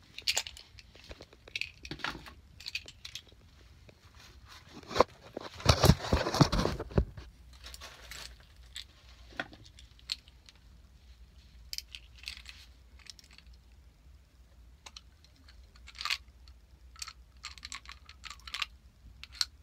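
Handling noises: scattered sharp clicks and light rattles of small objects being handled, with a louder rubbing and rustling stretch from about five to seven seconds in.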